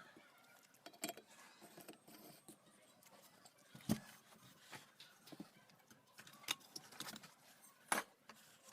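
Scattered metallic clicks, clinks and knocks of pump parts and hand tools being handled, with the sharpest knocks about four seconds in and near the end.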